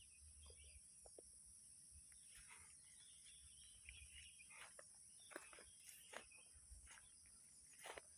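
Near silence outdoors: a faint, steady high-pitched insect chorus, with a few soft scattered ticks and rustles.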